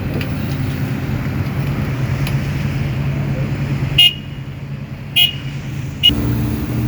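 Sumitomo SH-300 excavator's diesel engine running steadily. About four seconds in it drops lower, and three short sharp metallic-sounding knocks with a ringing tone come about a second apart. The engine then comes back up near the end.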